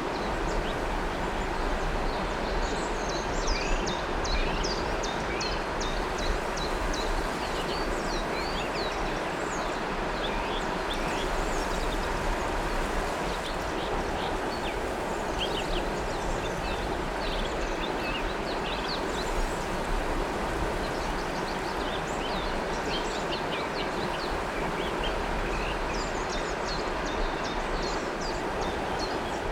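River water flowing steadily, with many short bird chirps and calls over it.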